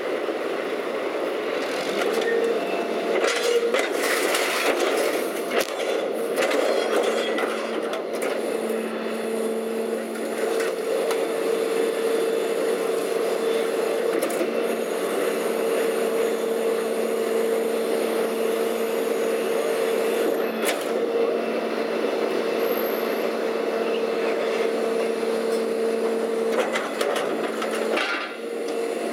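Leach 2R-II rear-load garbage truck packing demolition debris: the truck's engine and hydraulics run with a steady whine as the packer blade cycles, with clattering knocks of rubble in the hopper in the first few seconds, once about twenty seconds in and again near the end.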